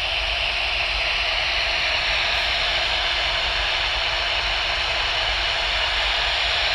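Proaller sleep sound machine playing a steady, even hiss of white noise through its small speaker, mostly treble with little bass.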